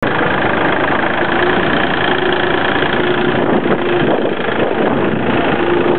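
Compact farm tractor's diesel engine running steadily close by, with a steady hum through it.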